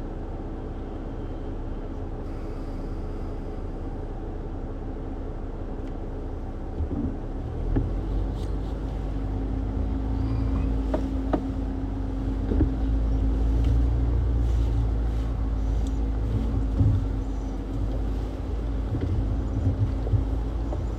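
Jeep engine and drivetrain running under load as the Jeep crawls over a rocky off-road trail. The rumble grows louder about a third of the way in, a steady low drone joins it, and there are occasional knocks.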